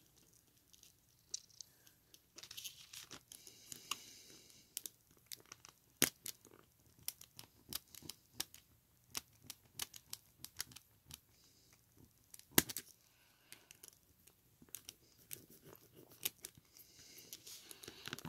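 Faint, irregular clicks and crackles of fingers handling an opened plastic HP 10s calculator, pressing along the display's connector strip to find its loose connection. Two sharper taps stand out, about six and twelve and a half seconds in.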